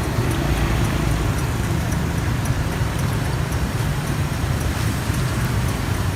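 Hot oil sizzling as battered bananas deep-fry, over the steady rumble of street traffic.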